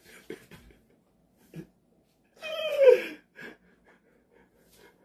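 A person's drawn-out vocal groan, falling in pitch, about halfway through, after a few faint knocks.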